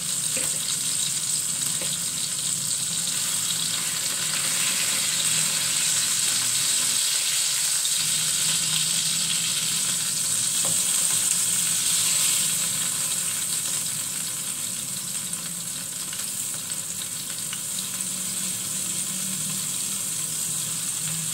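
Pieces of beef patty sizzling in hot oil in a frying pan: a steady frying hiss that gets slightly quieter in the second half.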